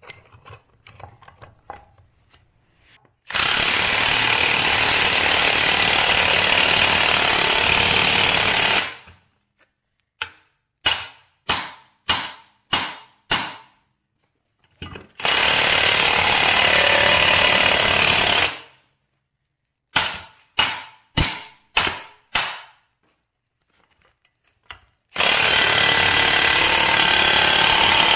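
Cordless impact wrench hammering in three long runs of several seconds each, driving the screw of a C-frame ball joint press to push a lower ball joint into a steering knuckle. Between the runs come two sets of about six sharp, quickly fading metal knocks.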